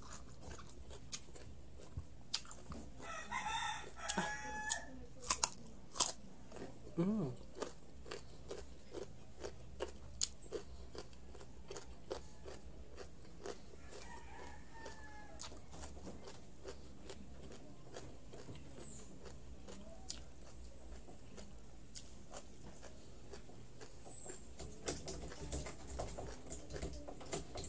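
Close-up crunching and chewing of raw carrot: crisp bites followed by irregular crunches, thickest in the first several seconds and again near the end. A brief pitched call sounds about three seconds in.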